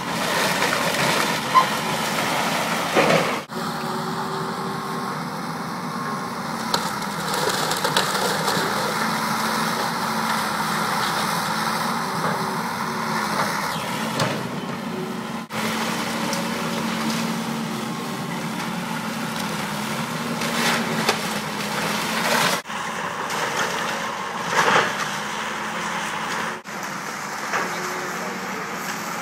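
Tracked excavator's diesel engine running steadily under load as its bucket tears into a wood-frame house. Sharp cracks and crashes of breaking, falling timber come now and then, the loudest near the start and about three-quarters of the way through.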